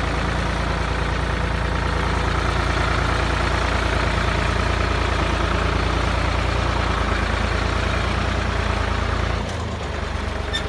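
Ford 3000 tractor's three-cylinder engine running steadily. About nine and a half seconds in, the engine note drops lower and gets a little quieter.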